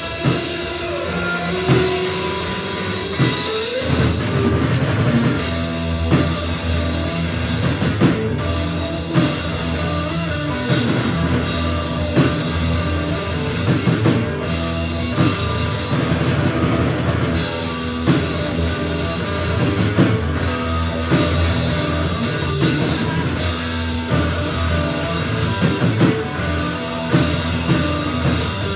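A guitar-and-drums duo playing rock live: amplified guitar over a full drum kit, an instrumental stretch with no singing.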